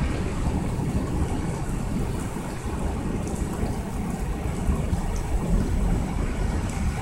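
Torrential rain falling steadily during a thunderstorm, an even hiss with a low rumbling undertone.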